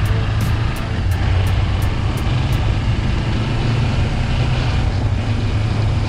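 A motorcycle riding at a steady speed: a continuous low engine rumble mixed with road and wind noise.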